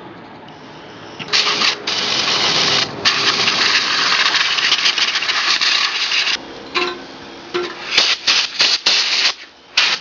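Compressed nitrogen hissing from a blow gun as it blasts dust out of a furnace blower motor. One long blast of about five seconds starts a second or so in, then several short bursts come near the end.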